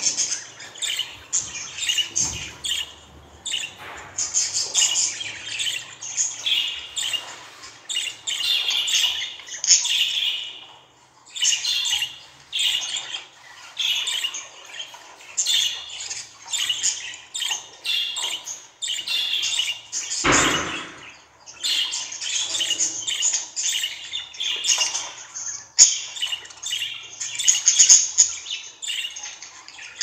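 Female budgerigar chirping and chattering in quick runs of short, high calls, with brief pauses between runs.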